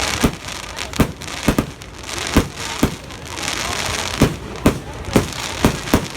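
Fireworks display: about ten bangs from bursting shells in quick, uneven succession, with a steady hiss between them.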